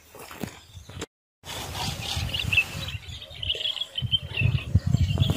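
Small birds chirping steadily over gusty wind rumbling on the microphone. The sound drops out completely for a moment about a second in.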